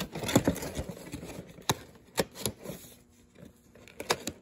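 Cardboard boxes being handled: irregular taps, knocks and light scrapes of cardboard against cardboard, with a quiet pause about three seconds in and a few more taps near the end.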